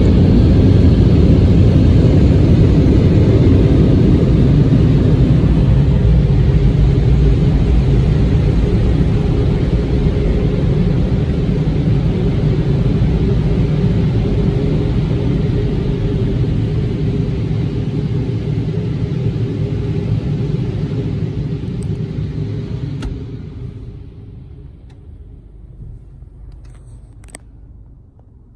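Car wash dryer blowers, electric-motor fans blasting air, make a loud, steady rushing rumble. It slowly fades as the car pulls away and drops off sharply about 23 seconds in, leaving a low background with a few faint clicks.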